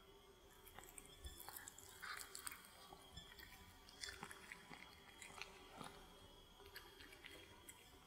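A cat chewing and biting into a sausage baked in dough: faint, irregular chewing sounds, with a few louder bites about two and four seconds in.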